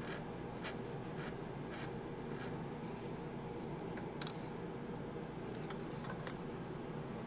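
Faint scraping strokes about every half second as fingers turn an engine valve, its stem rubbing in a dial-indicator straightness fixture. A few sharp light clicks come after about four seconds and again near six seconds as the parts are handled. All of it sits over a steady low background hum.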